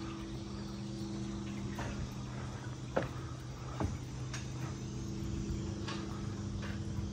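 A steady low machine hum with a few faint knocks and clicks scattered through it.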